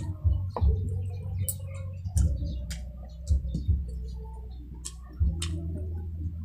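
Close-up wet chewing and lip-smacking while eating sticky BBQ pork ribs by hand: sharp clicks at uneven intervals, over a steady low hum.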